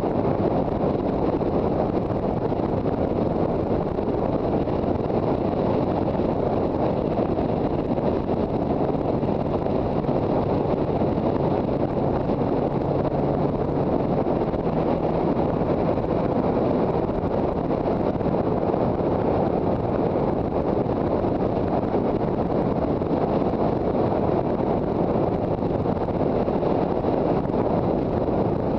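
Steady wind rush buffeting the microphone of a motorcycle riding at speed, with the engine of the Yamaha TZR250 faint beneath it. A low steady engine note stands out briefly about a third of the way through.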